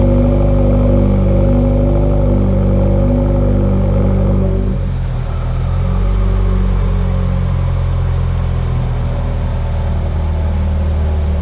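Subaru WRX flat-four engine running steadily through its exhaust, a low drone. About five seconds in, the note changes as its upper tones drop away.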